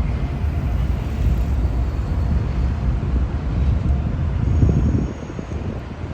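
A loud, steady low rumble with wind buffeting the microphone, easing off about five seconds in.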